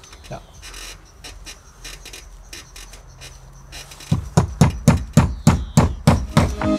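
Faint scattered taps, then about four seconds in a fast run of loud thumps, about four a second, each dropping in pitch.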